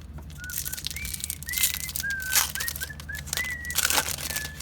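A person whistling a short run of notes of a tune, some held and some sliding. Over it come the rustle and snaps of trading cards and a foil pack being handled, and these are the loudest moments.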